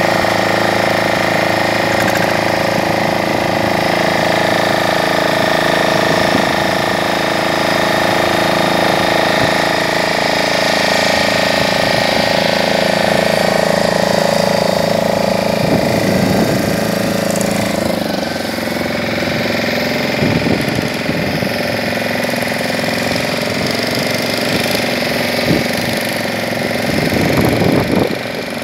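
Small fishing boat's motor running steadily under way, holding an even pitch; it drops slightly in level about two-thirds of the way through.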